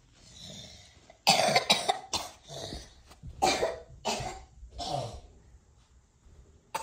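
A person coughing in a fit of about six or seven coughs in quick succession, starting about a second in and dying away by about five seconds in.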